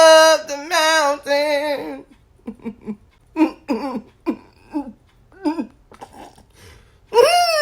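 A high-pitched voice holds a wavering, sung-like note for about two seconds. It breaks into a string of short wordless vocal sounds, then gives a single longer call that rises and falls near the end.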